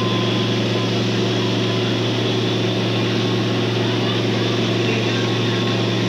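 A steady low drone with a constant hiss over it, unchanging throughout.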